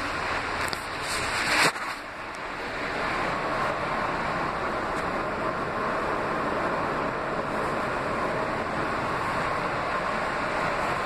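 R160B subway car running, heard from inside: a steady rushing of wheels on rail and car noise. About a second in, a brief louder rush swells and cuts off suddenly.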